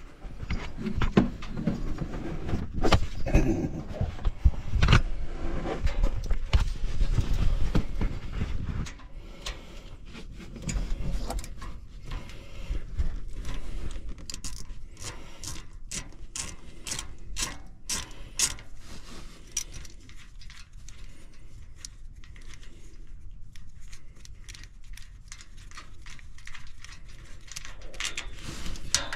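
Hand ratchet with a Torx bit clicking in quick runs while backing out the screws of the oil filter cover on a Can-Am Defender's engine. The first several seconds are louder, with knocks and handling noise of the tool against the engine.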